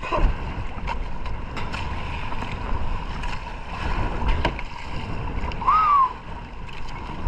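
Choppy seawater sloshing and splashing around a camera held at the waterline, with wind, and a few sharp splashes or knocks. About six seconds in, a short whistle rises and falls once.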